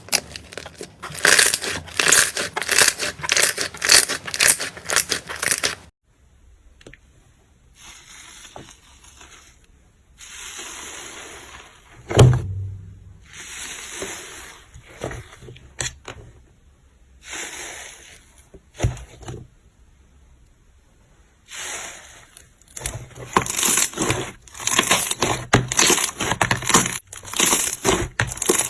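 Slime being pressed and squeezed by hand. Dense runs of crackling clicks fill the first six seconds and again the last seven, with quieter squishing swells in between and a soft thump about twelve seconds in.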